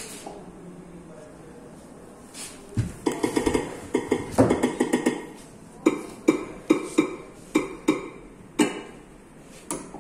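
Fingertip taps on the glass of a large interactive touchscreen panel while typing on its on-screen keyboard. The taps start about three seconds in, in quick clusters at first, then as single knocks spaced a few tenths of a second apart.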